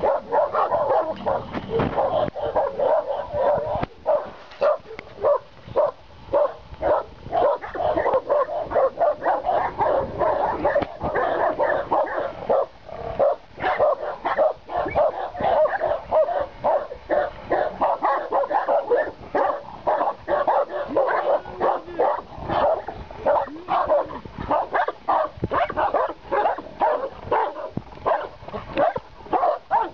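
Caucasian Shepherd Dogs barking without pause, about two barks a second.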